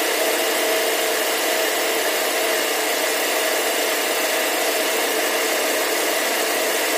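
Steady whooshing hum of a Proton Wira's engine bay running, with the electric radiator fan blowing, while the newly fitted radiator is filled with coolant.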